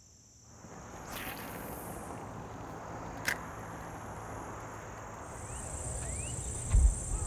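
Outdoor lakeside ambience fading up in the first second: a steady hiss with insects trilling at a high pitch, stronger in the second half. A single sharp click comes about three seconds in, and a low thump near the end.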